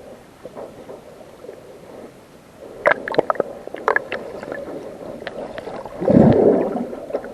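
Sea water sloshing and splashing right at an action camera. There are sharp splashes about three to four seconds in and a loud, muffled gurgling rush of water about six seconds in.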